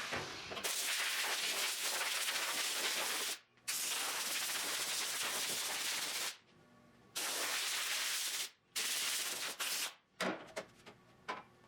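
Compressed air hissing in four long blasts of a few seconds each that start and stop cleanly, then several short blasts near the end.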